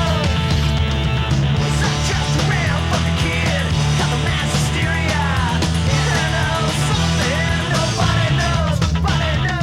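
Loud punk rock music with distorted guitar and shouted vocals.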